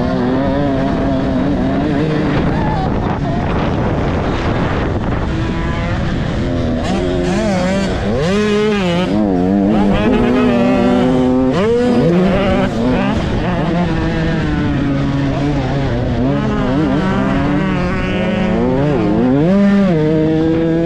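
Motocross dirt bike engine revving up and down hard, its pitch climbing and falling repeatedly as the rider works the throttle and shifts gears, heard close up from an on-board camera.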